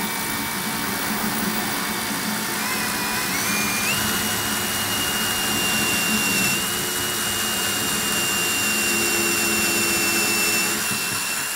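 Cordless DeWalt drill turning a glass-and-tile bit at low speed into ceramic wall tile: a steady grinding with a motor whine that steps up in pitch about three to four seconds in. The drill stops suddenly at the very end.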